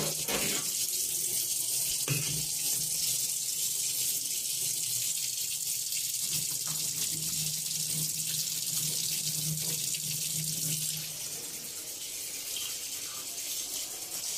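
Kitchen tap running a steady stream of cold water into a steel bowl of steamed broccoli florets in a sink, rinsing them. The splashing gets a little quieter about three-quarters of the way through.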